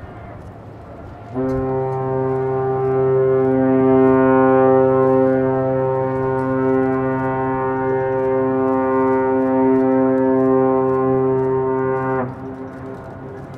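Destroyer Takanami's ship's whistle sounding one long blast of about eleven seconds, a deep steady horn tone with many overtones, starting about a second and a half in and dipping slightly in pitch as it cuts off. A prolonged blast like this is the signal of a ship getting under way from its berth.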